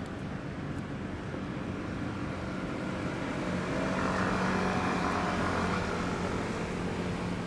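A passing motor vehicle, its steady engine hum swelling to its loudest about four to five seconds in, then easing slightly.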